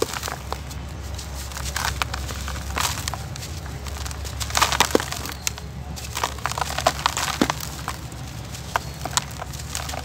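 Dry, gritty brown dirt clumps crushed and crumbled by hand, with irregular crunching and crackling and grains trickling down into a tub.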